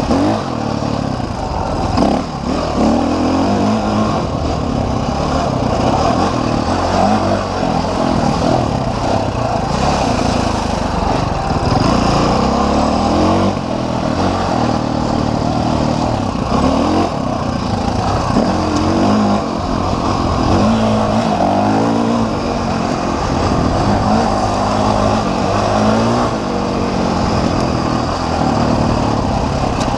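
Dirt bike engine being ridden on a trail, its revs rising and falling over and over as the throttle is opened and closed.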